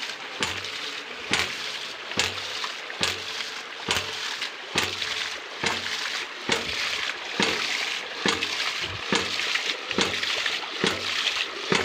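Sanan AS4 hydraulic ram pump running: its waste valve knocks shut a little faster than once a second in an even beat, with water gushing and splashing out of the valve between knocks. Each knock is the water-hammer stroke that drives water up the delivery pipe.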